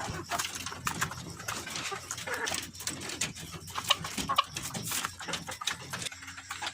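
Chickens clucking over their feed, with many quick tapping clicks of pecking.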